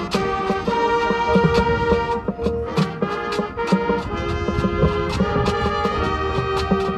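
High school marching band playing: the brass holds sustained chords over frequent drum and percussion hits.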